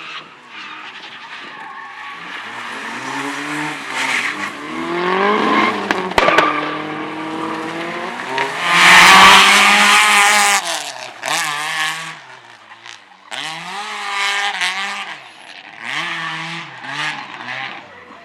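Slalom competition car's engine revving up and dropping back again and again as it accelerates, brakes and turns through the course, with tyres squealing. The loudest moment comes about nine seconds in, a harsh burst of engine and tyre noise lasting over a second, followed by quick, short rev rises and drops.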